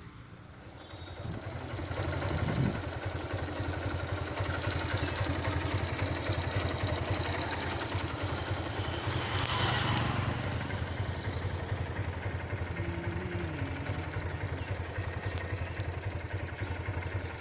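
Motorcycle engine running under way, growing louder over the first few seconds and then holding steady. A brief rushing whoosh swells and fades about ten seconds in.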